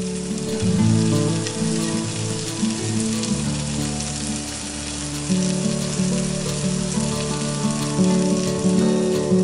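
Chicken thighs sizzling on a cast iron charcoal grill, under background music of held notes that change every second or so.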